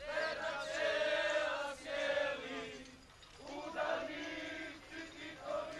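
A crowd of voices singing together in chorus, holding long notes.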